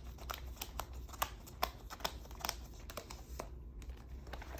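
Paper planner pages rustling, with a run of small sharp clicks as they are handled and pressed onto disc binding.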